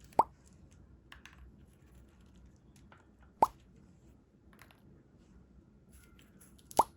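Three short pop sound effects, each a quick upward-sweeping blip, roughly three seconds apart, with a few faint light clicks in between.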